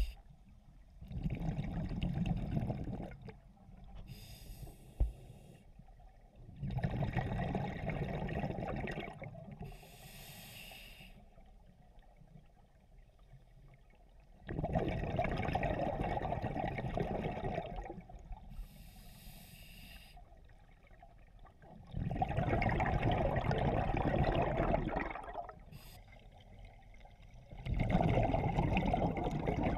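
Scuba diver breathing through a regulator underwater: a short high hiss of the inhale, then a long rush of exhaled bubbles. Five breaths about seven seconds apart.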